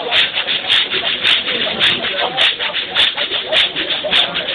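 A dancing crowd with a steady beat of sharp strikes, a little under two a second, over a dense patter of smaller hits and scuffs. Voices are singing or chanting faintly underneath, and the sound is coarse and distorted.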